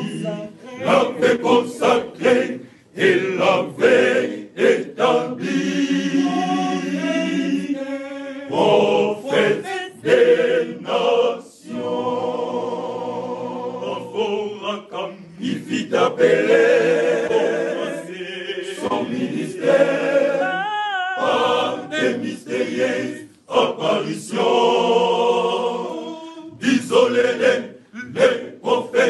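Male choir singing a hymn in several parts, holding chords and then breaking into short phrases.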